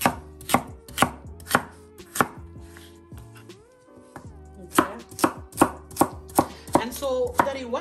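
Chef's knife chopping a carrot into rounds on a bamboo cutting board: sharp knocks of the blade on the wood about two a second. They pause for about two seconds midway, then resume a little quicker near the end.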